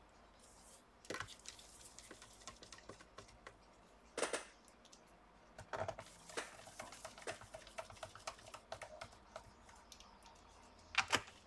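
Light clicks and taps of hands handling and pressing a laptop's plastic bottom cover into place, with a few louder knocks: about a second in, around four seconds, near six seconds and just before the end.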